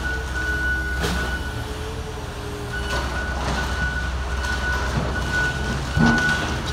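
Heavy construction machinery running: a steady low diesel rumble with a thin high whine that drops out for a second or so in the middle. Sharp knocks come about a second in and again near the end.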